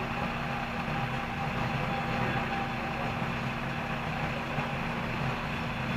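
Fire engine's engine running steadily at idle, a constant drone with an even hum.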